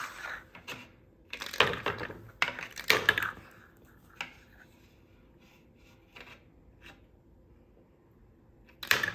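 Plastic Connect Four discs clacking: a quick series of hard knocks in the first few seconds as discs are dropped into the grid and handled on a stone countertop, then quieter faint ticks, and another loud clack near the end.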